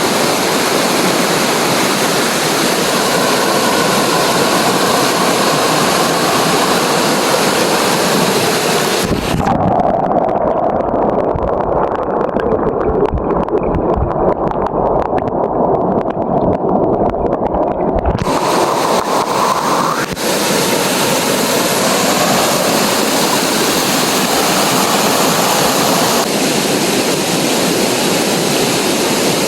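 Rushing water running steadily, a full continuous hiss. For about nine seconds in the middle the sound turns muffled and low, the high end gone and a low rumble taking over, before the bright rush returns.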